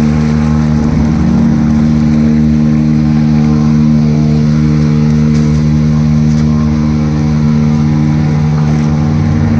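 Motorbike engine running at steady revs while pushing through floodwater deep enough to cover the exhaust silencer.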